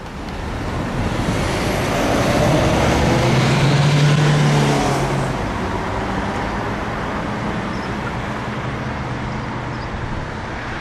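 A motor vehicle passing on the road: its engine hum and tyre noise swell to a peak about four seconds in, then slowly fade.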